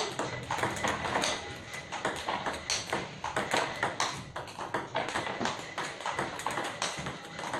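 Table tennis balls clicking in quick, irregular succession as they are struck by paddles and bounce on the table during multiball smash practice, several clicks a second.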